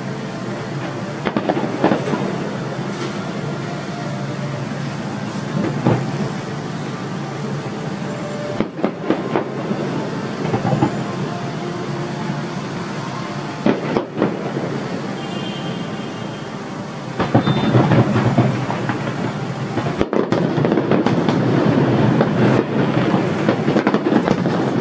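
Fireworks bursting over a steady background of noise: a single bang every few seconds, then, about two-thirds of the way in, a louder, denser barrage of rapid crackling bursts.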